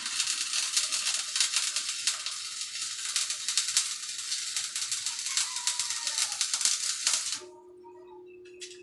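Electric arc welding on steel, a dense steady crackling and sizzling that stops abruptly about seven seconds in, leaving a faint steady hum.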